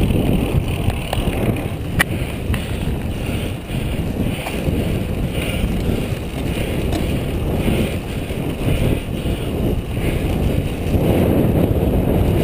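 Wind rushing over the microphone of a camera riding along on a road bicycle, mixed with road noise from the moving bike. There is one sharp click about two seconds in, and the rush grows louder near the end.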